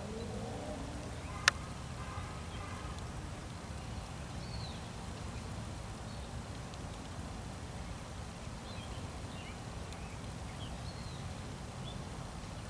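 A few short bird chirps over a steady low rumble, with one sharp click about a second and a half in.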